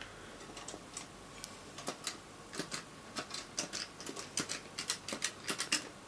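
HM25 elevator push buttons clicking as they are pressed and handled: a string of irregular light clicks and taps, coming thicker in the second half.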